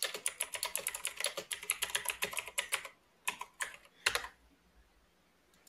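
Typing on a computer keyboard: a fast run of keystrokes for about three seconds, then three separate keystrokes, the last and heaviest about four seconds in.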